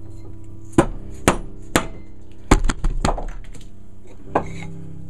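A shot-filled dead-blow hammer strikes a hardwood drift block about seven times at an irregular pace, with several quick blows close together in the middle. The blows are driving the old handle down out of the eye of the axe head, which is nearly free.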